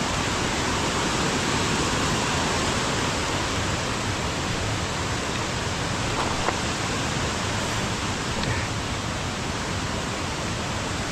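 Steady rush of flowing water from a mountain creek, an even hiss that holds level throughout.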